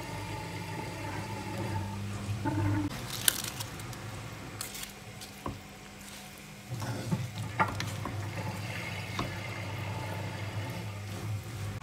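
Soy sauce poured over chopped pork offal in a frying pan, then a wooden spatula stirring and scraping the mixture, with a few sharp clacks of the spatula against the pan. A steady low hum runs underneath.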